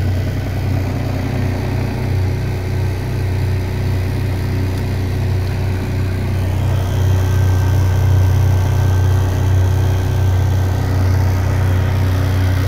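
Electric boat drive motor running steadily: a loud low hum with a few faint steady whining tones above it, a little louder from about halfway through.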